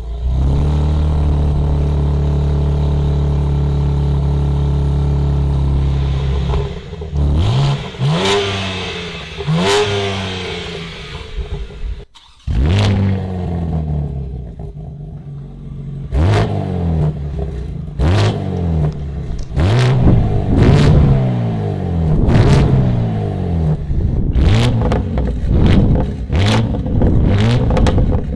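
A BMW Manhart MH4 GTR's tuned twin-turbo inline-six holds a steady note, then revs up twice. After a brief dropout, it is blipped repeatedly, about once a second, with sharp cracks on the blips.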